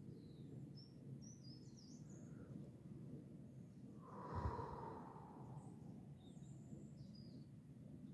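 Quiet outdoor ambience with a few faint bird chirps; about four seconds in, a person breathes out once in a long sigh-like exhale.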